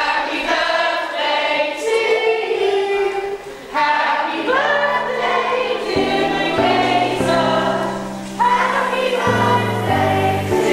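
A group of voices singing together in chorus, with music carrying a steady bass line coming in about four seconds in.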